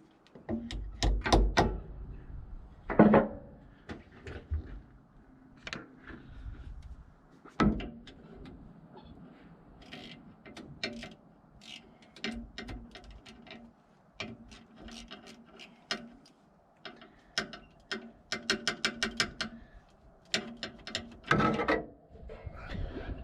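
Hand ratchet wrench clicking in short quick runs, with scattered metal clanks of tools and parts being handled.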